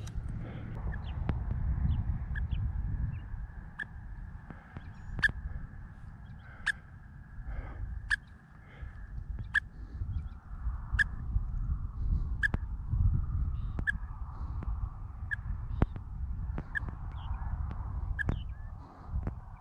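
Falconry radio telemetry receiver beeping with the pulses from a hawk's transmitter: short, evenly spaced pips about every second and a half, used to home in on the birds. Low wind rumble on the microphone underneath.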